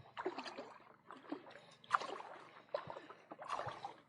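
Shallow water splashing and sloshing in short, irregular bursts.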